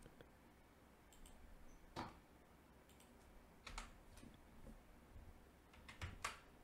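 A handful of faint, separate clicks from a computer keyboard and mouse, spaced a second or two apart as keys are pressed and buttons clicked, over quiet room tone. The loudest clicks come about two seconds in and near the end.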